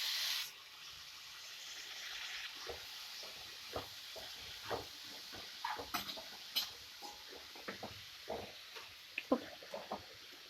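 Milk poured into a hot pan of grated coconut and sugar, a short loud splash at the start, then a spoon stirring and scraping the mixture in the pan with scattered light clicks over a faint sizzle.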